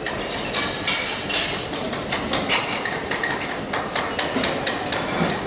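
Restaurant kitchen clatter: frequent sharp clicks and clinks of metal utensils against pans and trays over steady background noise.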